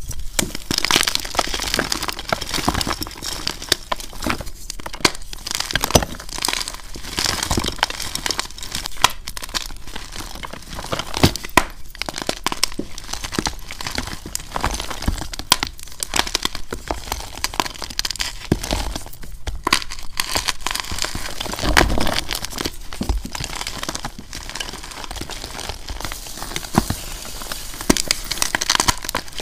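Blocks of gym chalk crushed and crumbled by hand: an irregular, unbroken stream of crunching and crackling with occasional sharper snaps as pieces break apart.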